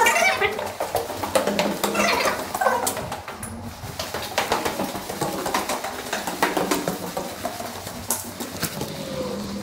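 Footsteps scuffing and crunching over grit and broken glass on a concrete floor, with many short clicks, and a few bird calls among them.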